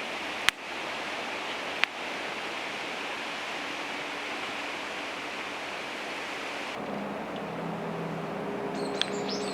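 Food sizzling steadily in a hot pan over a campfire, with two sharp clicks in the first two seconds. About seven seconds in, the sizzle cuts off abruptly to a quieter hiss with low steady tones.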